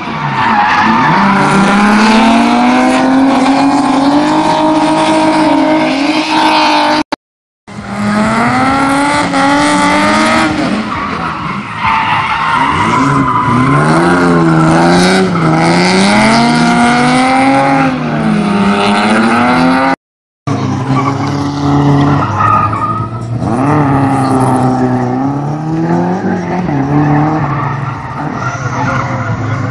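Drift car engine revving up and down hard while its rear tyres squeal through a slide. The sound drops out briefly twice, about seven seconds and twenty seconds in.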